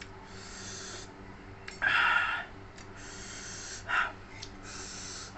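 A man breathing hard through the mouth and nose from chilli heat while eating: several hissing breaths drawn in and out, with a louder puff of breath about two seconds in and a short one about four seconds in.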